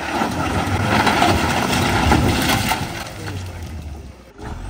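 Mahindra Bolero's engine revving hard under load as it claws up out of a rocky ditch, its tyres spinning and crunching over loose stones. The noise drops off sharply just after four seconds, then picks up again.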